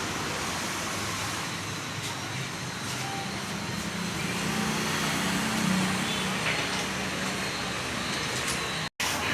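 Steady motor-vehicle running noise with a faint wavering hum, the kind heard while a car's AC system is being recharged with refrigerant. The sound cuts out abruptly for an instant near the end.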